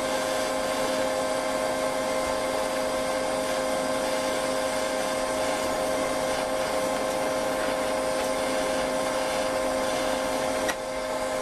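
TIG welding arc running steadily: a continuous hissing buzz with a constant electrical hum. Near the end there is a click, and the sound drops slightly.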